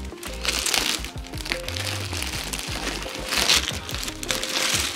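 A clear plastic bag crinkling in bursts as it is grabbed, lifted and handled around a packed camera backpack. Background music with a steady beat plays underneath.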